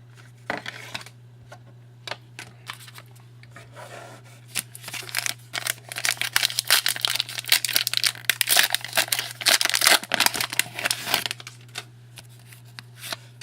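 Trading card pack wrapper being torn open and crinkled by hand, a few scattered rustles and taps at first, then a dense stretch of crinkling and tearing that stops near the end.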